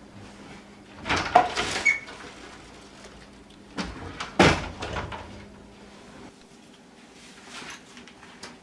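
Bifold closet doors being slid along their track: two noisy bursts about a second long, one about a second in and one near the middle, with a knock just before the second.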